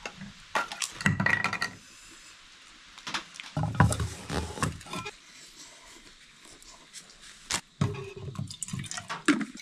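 Close-up clicks, knocks and rustles of eating and handling food and cookware, in three bursts: about a second in, around four seconds in, and near the end.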